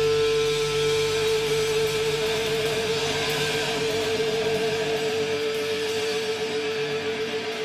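A thrash metal band playing live, with an electric guitar holding one long, wavering note over the band. The lowest bass drops away about five seconds in.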